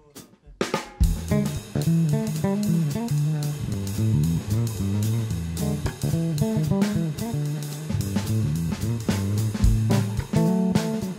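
Background music with guitar, bass guitar and a drum kit, starting about a second in with a steady beat.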